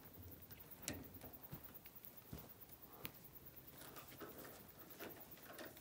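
Faint, scattered light taps and knocks from someone handling things inside a shower stall, with two sharper clicks about one and three seconds in.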